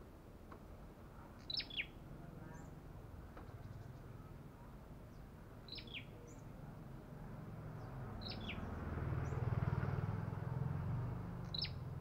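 Olive-backed tailorbird (Orthotomus sepium) calling four times, a few seconds apart, each call a quick pair of sharp falling notes. A low rumble swells and fades behind it about two-thirds of the way in.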